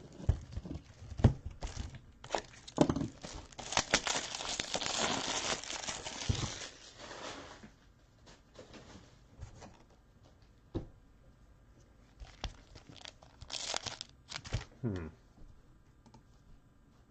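A football trading-card pack's wrapper being torn open and crinkled for several seconds, then scattered light clicks and rustles as the cards are handled, with another short crinkle near the end.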